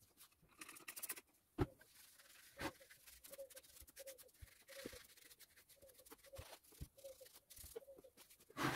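A cloth rubbing and scrubbing over the painted metal housing of an old bench grinder, with a few light knocks and clicks as the machine and cleaning supplies are handled.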